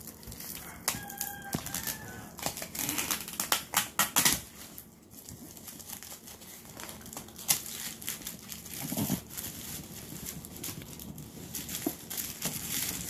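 Plastic shrink-wrap crinkling and tearing as it is pulled off a cardboard board game box, in irregular crackles that are loudest about three to four seconds in.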